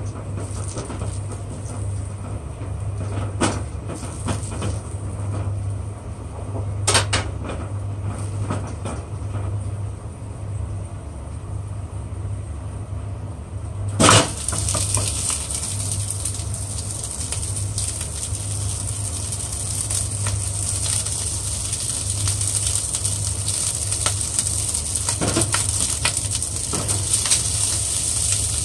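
Garlic cloves frying in oil in a nonstick pan over a steady low hum, with a few spatula scrapes and taps. About halfway through, cooked rice is tipped in with a sharp knock against the pan, and the sizzle turns louder and hissier as the rice is stir-fried.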